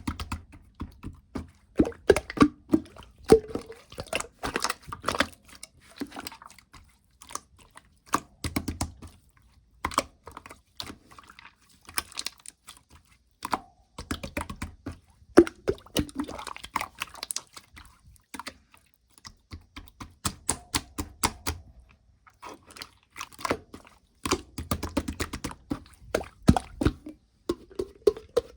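Hands squishing, pressing and folding slime, giving rapid sticky clicks and small pops in bursts of a few seconds with short pauses between.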